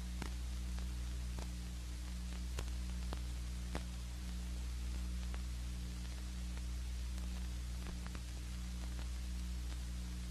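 Background noise of an old film soundtrack: steady hiss and low hum with scattered clicks and pops.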